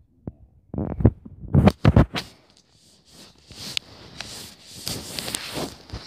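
Handling noise of a handheld camera's microphone: a few loud knocks about a second in as the camera is grabbed and moved, then scratchy rubbing and rustling against the microphone.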